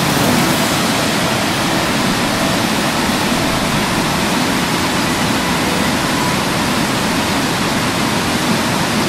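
Steady rushing of a large waterfall in full flow, an even wash of falling water with no change in level.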